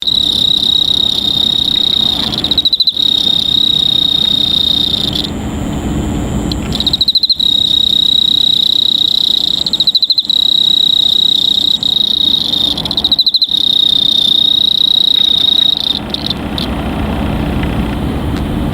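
Cricket singing in long, steady, high-pitched trills, each starting with a brief stutter; it pauses about five seconds in and again near the end. A low rumble runs underneath.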